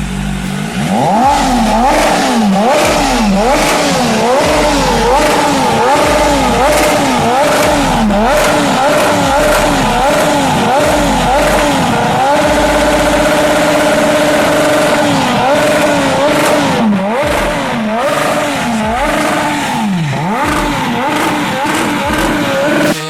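BMW S1000RR inline-four engine breathing through a Hurricane aftermarket stainless-steel sport exhaust, loud, revved in quick repeated blips about once a second. About halfway through it is held at steady higher revs for roughly three seconds, then the blips resume.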